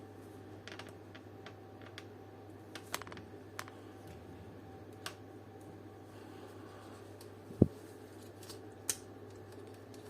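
Small plastic clicks and taps from an old Hella car dome light being pushed and pried apart by hand, with one sharper knock about three-quarters of the way through, over a steady low hum.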